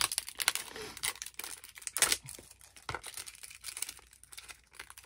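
Small product packaging being opened by hand: irregular crinkling, rustling and tearing, with a few sharper snaps.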